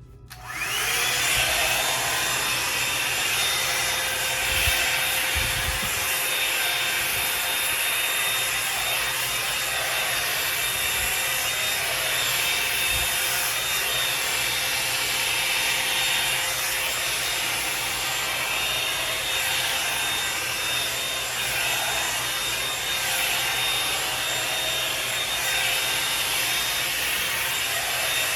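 Revlon One-Step hair dryer and styler brush switched on, its motor coming up to speed within about a second, then blowing steadily with a high motor whine over the rush of air. A few soft low bumps come about five seconds in.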